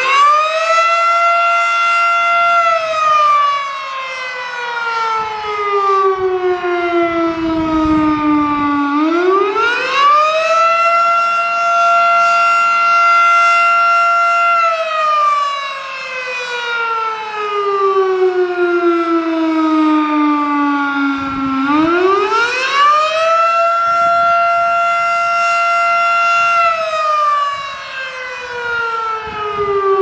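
Federal Signal Model 5 electromechanical warning siren sounding a wail: its tone winds up quickly, holds a steady pitch for a few seconds, then slowly falls away, three times over.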